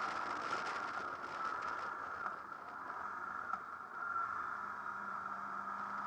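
Onboard sound of a Honda VFR800 V-TEC's V4 engine under way, mixed with wind rush over the bike-mounted camera. The sound drops off in the middle and picks up again about four seconds in.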